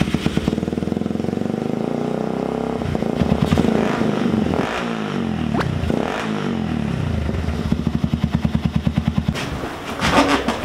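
Yamaha Serow 225's air-cooled single-cylinder four-stroke engine running just after being started, its revs rising and falling a few times with throttle blips. It runs without trouble.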